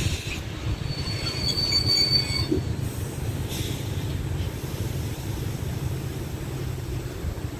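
ALn 776 diesel railcar approaching slowly, with a steady low rumble of its engine and wheels on the rails. A thin, high-pitched whine lasts about a second and a half near the start.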